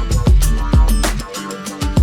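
Background music with a steady beat: kick drum, hi-hat and plucked, guitar-like notes.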